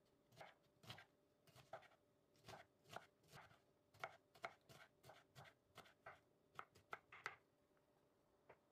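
Kitchen knife chopping young broad bean pods on a wooden cutting board: quiet, sharp taps about three a second that stop about seven seconds in, with one more tap near the end.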